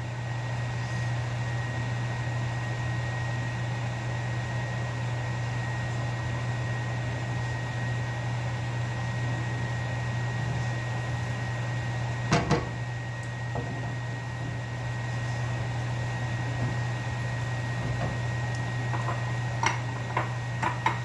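A steady low mechanical hum with a faint high whine, like a fan or appliance running, with a pair of sharp knocks about twelve seconds in and a few light clicks near the end.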